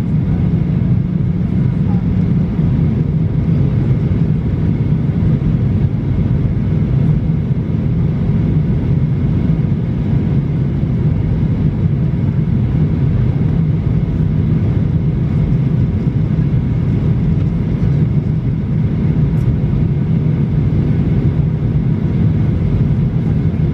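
Steady cabin noise inside a Boeing 737-800 during its descent, heard from a window seat beside the wing: the CFM56-7B turbofan engine's hum mixed with airflow over the fuselage, with a low rumble and a few faint steady tones above it.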